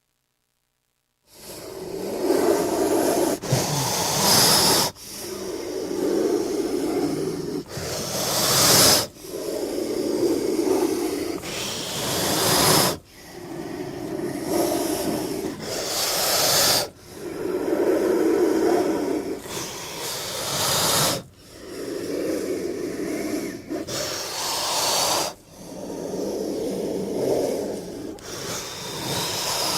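King cobra's low, growling hiss, repeated about every four seconds after a second of silence. Each breath is a rasping low growl that ends in a sharper, higher hiss.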